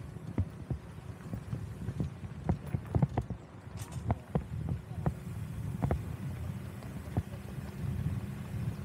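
A vehicle driving over a rough road: a steady low rumble with irregular knocks and rattles, a few each second.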